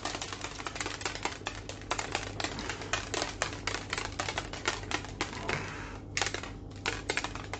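Plastic protein shaker bottle shaken hard by hand, a fast run of rattling knocks, about four or five a second, as a protein drink is mixed.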